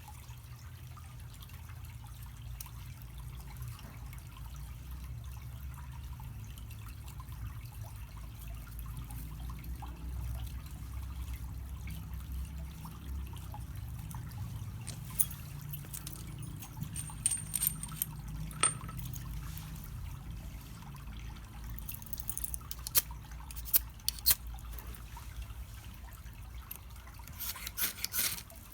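Small wood fire burning on top of charcoal in a shichirin clay grill: a steady low rush with sharp pops and crackles of burning wood, which become more frequent in the second half.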